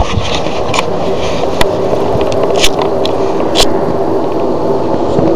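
Steady, loud rumbling drone in the sky with faint held tones in it, of the kind reported as "strange sounds in the sky"; it sounds something like an airplane. A few sharp clicks sound over it, about one and a half, two and a half and three and a half seconds in.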